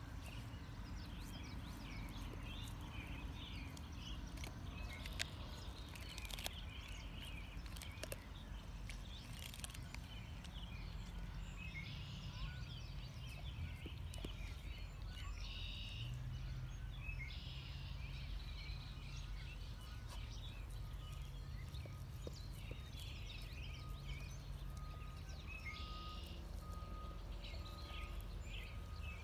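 Black Labrador chewing a frozen raw bluegill, with scattered crunches and clicks as its teeth work through the fish, over a steady low outdoor background hum.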